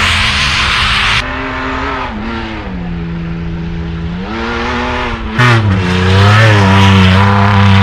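Off-road vehicle engine revving, its pitch rising and falling as the throttle changes, with a loud rush of noise in the first second and the engine louder again from about five and a half seconds in.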